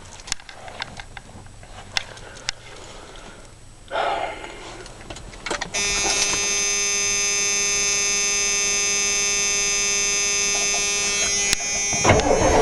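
A steady electric buzz begins about six seconds in and holds at one pitch for some six seconds, then cuts off as the cold 7.3 IDI diesel of a 1990 Ford F-250 fires and catches near the end, after a hard cold start.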